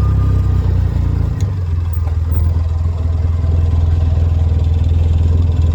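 ATV engine running steadily at low speed, its note shifting with a click about a second and a half in.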